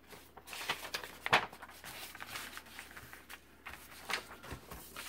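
Sheets of paper rustling and sliding as a stack is leafed through and handled, with a sharper crackle a little over a second in.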